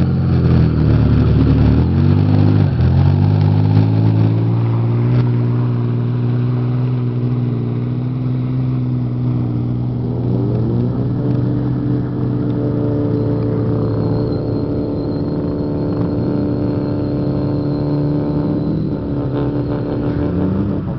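Off-road 4x4 engine running hard under load through mud and water. The revs drop and pick up again in the first few seconds, then climb about ten seconds in and hold steady.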